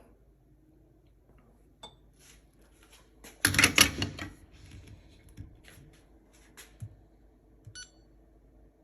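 Metal espresso gear being handled on a countertop: a loud burst of clinks and knocks about three and a half seconds in, then scattered light taps and clicks.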